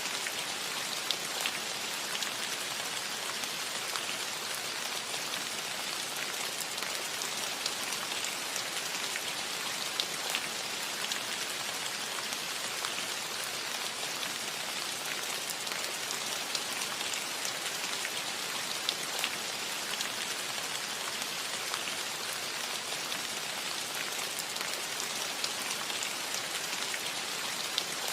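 Gentle rain falling steadily on a metal roof: a dense, even hiss with scattered sharper drop ticks.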